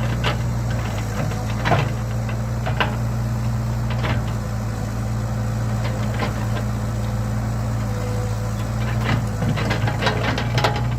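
Excavator's diesel engine running steadily, with scattered knocks and clanks over it, several close together near the end.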